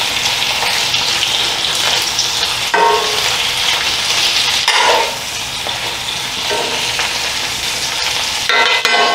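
Sliced potatoes sizzling steadily in hot oil in a cast iron frying pan. A metal utensil scrapes across the pan a few times as they are turned.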